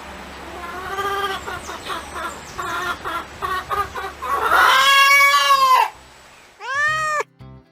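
Chickens clucking in a run of short pitched notes, then a long, loud drawn-out call about four and a half seconds in, like the held end of a rooster's crow. Near the end, a different short call comes in briefly over a low backing.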